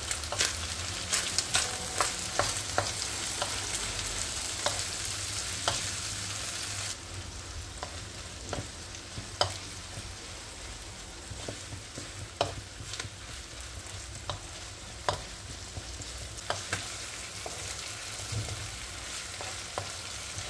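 Diced chicken and green peppers sizzling in hot oil in a non-stick frying pan, while a wooden spoon stirs them and knocks against the pan in frequent sharp clicks. The sizzle suddenly drops quieter about seven seconds in.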